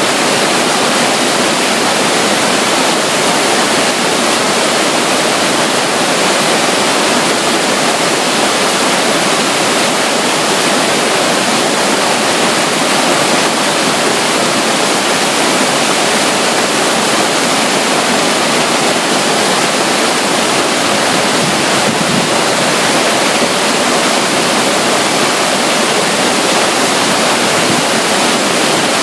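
A small flow of water running and splashing beside a river near a waterfall: a loud, steady rush with no break or change.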